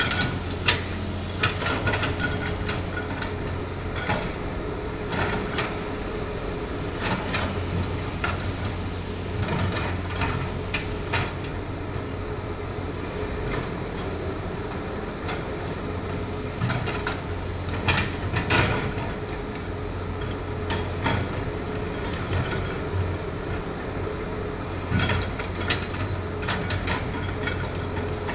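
Hitachi hydraulic excavator's diesel engine running steadily while the bucket digs soil, with repeated clanks and knocks from the bucket and boom linkage.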